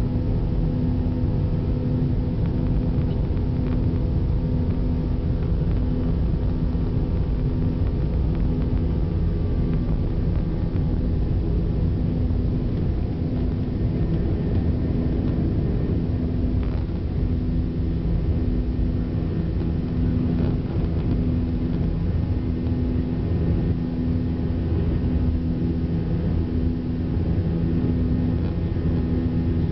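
Airliner's wing-mounted jet engines at takeoff power, heard from inside the cabin: a steady loud rumble with a low droning hum that pulses about once a second, through the takeoff roll and climb-out.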